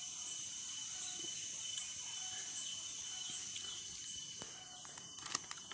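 Steady high-pitched insect chorus with a thin whistle-like tone running through it, and a few light clicks near the end.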